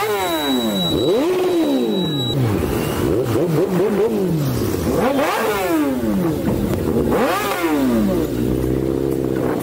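Motorcycle engine revved hard again and again: the pitch shoots up and falls back about five times in quick throttle blips.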